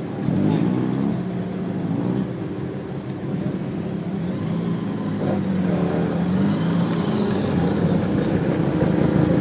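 Car engines rolling slowly past at low revs, with short rises and falls in engine pitch about half a second in and again around five seconds in, growing louder toward the end.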